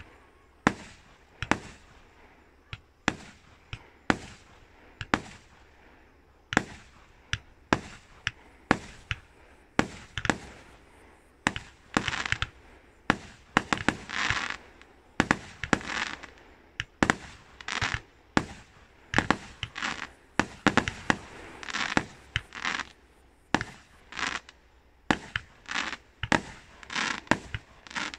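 Fireworks display: aerial shells going off in a steady run of sharp bangs, about one or two a second, with spells of crackling from the middle on.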